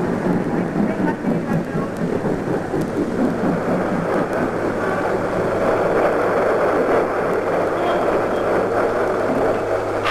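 A steady vehicle rumble with a constant low hum beneath it, swelling somewhat in the middle.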